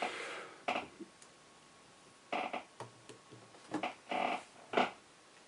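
A few faint, short clicks and knocks from an iPhone being pushed into a speaker's dock connector and handled.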